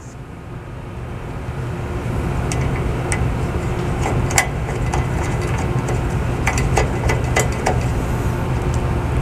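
A steady low machine rumble swells up over the first two seconds and then holds. Over it come scattered light metallic clicks of bolts and a steel bracket being handled as quarter-20 hardware is finger-tightened on the UTV's roll-cage pillar.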